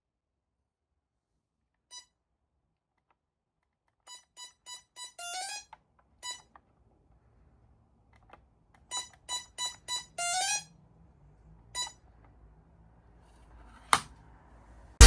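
Gardtec 595/600 intruder alarm keypad beeping: a single key beep, then twice a run of four quick key beeps followed by a short rising warble, as a four-digit code is keyed in. A single sharp click near the end.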